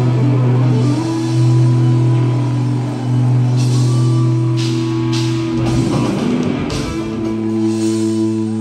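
Live rock band playing loud: guitar and bass hold low sustained chords while cymbal crashes and a drum fill come in the middle, and a new held chord starts about seven seconds in.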